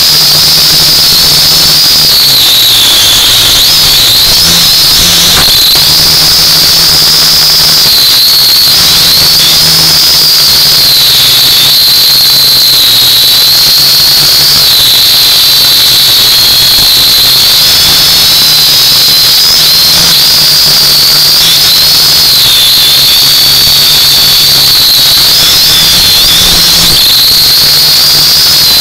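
U818A-1 quadcopter's electric motors and propellers whining loudly as heard from its own onboard camera. The high-pitched whine rises and falls repeatedly as the throttle changes during flight.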